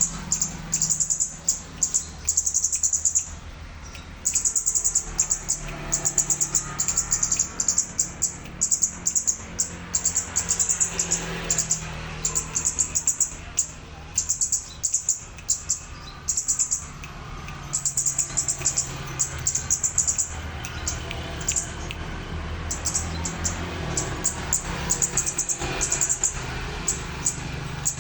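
Ốc mít bird calls, the lure call used to attract these birds: clusters of short, high chirps repeated over and over, with a steady low hum beneath.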